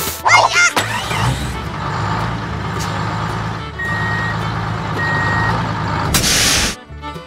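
Heavy diesel vehicle engine sound effect running steadily, with two short reversing beeps in the middle and a loud hiss like an air-brake release near the end, after which the engine cuts off.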